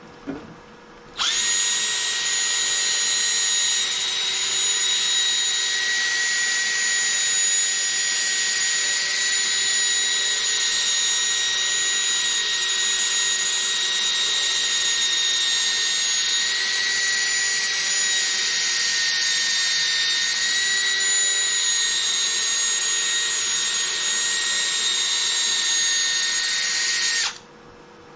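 Cordless drill spinning an 800-grit sanding disc against a plastic headlight lens, wet-sanding the oxidised surface: a steady whine that starts about a second in and stops near the end.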